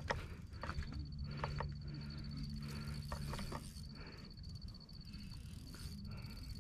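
A cricket trilling in a high, rapid, even pulse, breaking off briefly about five seconds in and starting again, over a low background rumble and a faint low hum through the middle.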